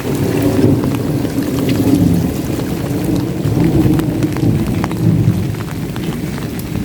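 A long roll of thunder rumbling over steady rain. The rumble swells at the start and eases off toward the end, with scattered raindrop taps throughout.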